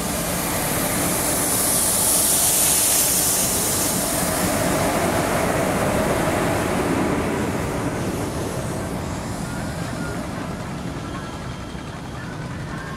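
Twin WAP-4 electric locomotives passing close by, then a train of open freight wagons rolling past. The rushing noise is loudest about two to three seconds in as the locomotives go by, swells again as the second locomotive passes, then eases slowly as the wagons follow.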